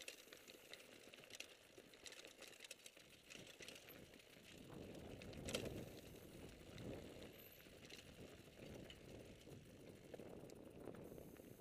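Faint rattling and clicking of a 2008 Turner RFX full-suspension mountain bike rolling over rocky dirt singletrack, with tyre rumble. The rumble swells about halfway through, with one sharp knock as it hits a bump.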